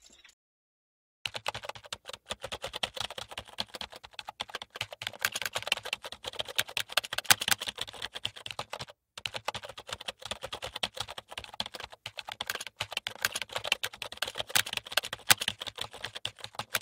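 Typing sound effect: rapid, irregular key clicks with a brief break about nine seconds in, accompanying on-screen text typed out letter by letter.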